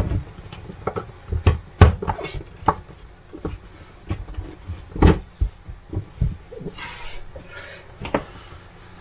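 Irregular sharp taps and clicks as a sheet of peel-and-stick metal-look mosaic backsplash tiles is handled and pressed onto the wall by hand, with a short rustle about seven seconds in.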